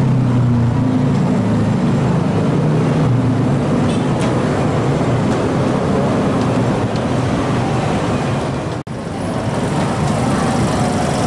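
Dense motorcycle and scooter traffic: many small engines running together as a steady loud din, with a lower engine drone standing out in the first few seconds. The sound drops out for an instant about nine seconds in, then the traffic din carries on.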